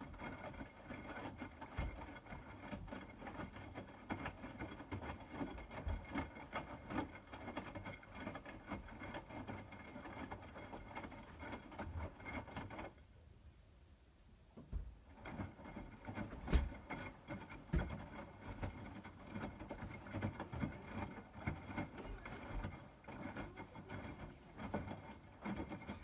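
Hotpoint WMFUG 942 front-loading washing machine tumbling its load: water and suds sloshing and laundry flopping in the drum, with irregular knocks. About halfway through the drum stops for about two seconds, then turns again, while the wash water heats during a 60° cycle.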